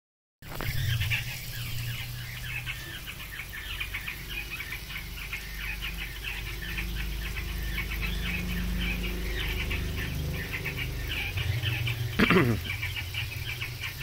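Puyuh sengayan quail chirping in rapid, dense short high peeps over a steady low rumble, with one louder gliding call about twelve seconds in.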